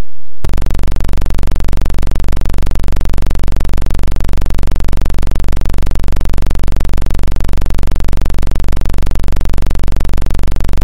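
A loud, steady buzz with a deep hum underneath, starting abruptly about half a second in and holding without change.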